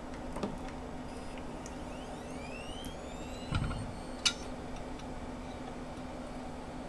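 Old IDE hard drive spinning up as it is powered through a USB adapter: a rising whine that climbs and levels off about three seconds in, over a steady hum. A dull thump follows, then a single sharp click.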